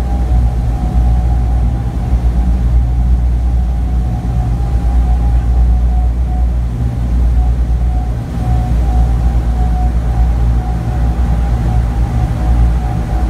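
The four Wright R-3350 radial engines of a B-29 Superfortress running steadily in flight, heard from inside the aircraft's glazed nose as a loud, deep drone with a thin steady whine above it.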